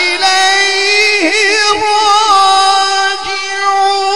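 A man's voice reciting the Quran in melodic tajweed style, drawing out one long ornamented vowel with wavering turns of pitch, amplified through a microphone.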